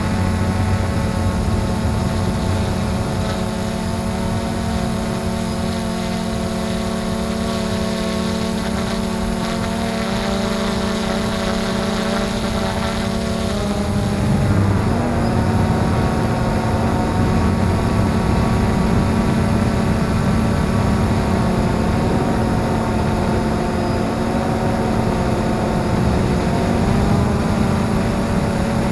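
XK Detect X380 quadcopter's brushless motors and propellers humming steadily in flight. The pitch of the hum shifts about halfway through as the motor speeds change.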